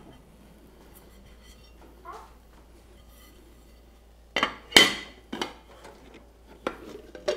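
Clinks and knocks of a non-stick camp frypan and a plate as an omelette is turned over. After a few quiet seconds come a quick cluster of sharp clatters, the loudest a little under five seconds in, and two lighter knocks near the end.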